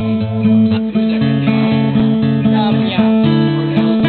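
Acoustic guitar strummed and picked, moving through a series of chords with the notes changing about every half second.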